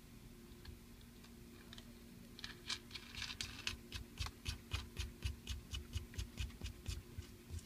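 Rapid small clicks and scratching, about four a second, starting a couple of seconds in, as the VMS stopper ring is turned down the threaded shift lever of a Nissan 300ZX.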